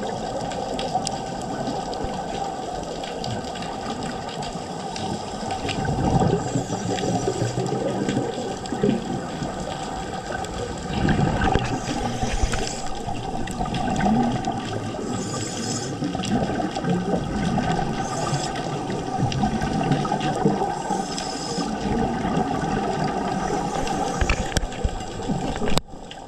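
Scuba regulator heard underwater: exhaled air bubbling out in rushing bursts every few seconds, over a steady water hiss.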